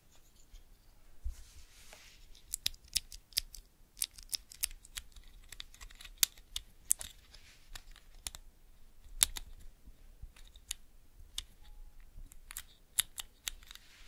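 Keys on a Cherry MX mechanical keyboard being pressed in an uneven, unhurried pattern: sharp separate clicks that start about two seconds in.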